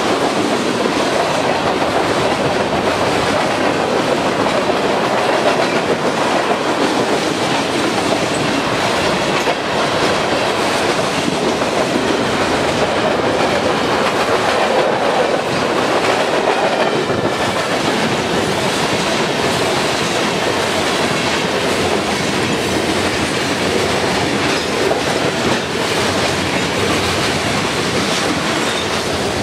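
Freight cars of a long CN freight train rolling past close by: steel wheels clicking and rumbling on the rails in a steady, loud rush.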